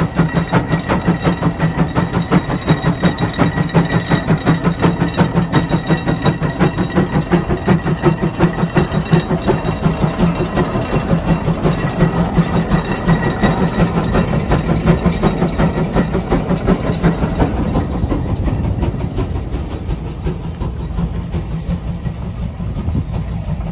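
The 150 Case steam traction engine working under load as it pulls a gang plow, its exhaust chuffing in a fast, even beat. The beat grows fainter near the end.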